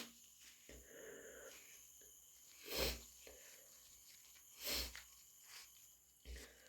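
A person with a cat allergy sniffing and breathing sharply through the nose, the irritated nose building toward sneezes: two short sharp bursts about two seconds apart, then a couple of fainter ones near the end.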